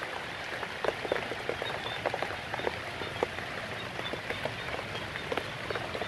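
Rain falling at night: a steady hiss with many small, irregular drops and ticks.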